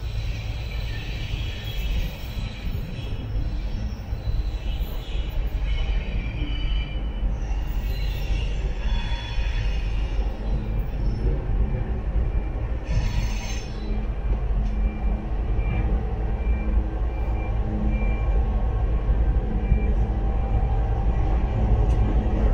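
Aurizon ACD-class diesel locomotives hauling a freight train as they approach. The rumble grows louder as the train comes near, high wavering wheel squeals are heard over the first half, and a steady engine hum comes in over the second half.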